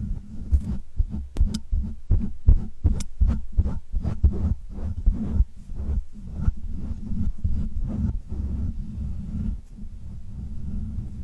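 Close-miked ASMR trigger sounds: an irregular run of soft low thumps, several a second, with a few sharp clicks among them, over a steady low hum.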